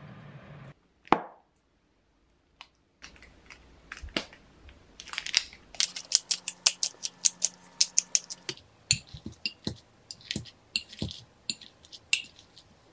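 A pepper grinder being twisted over a glass measuring cup, giving a quick run of sharp clicks. It is followed by a wire masher pressing and stirring boiled eggs in the glass cup in a series of soft thuds. There is a single knock about a second in.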